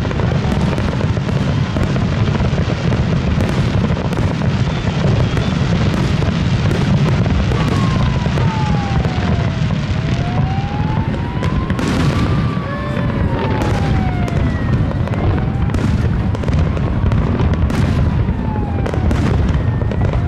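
Fireworks display: a continuous rumble of aerial shells booming and crackling, with many sharp cracks. From about eight seconds in, a tone slides slowly up and down behind the bursts.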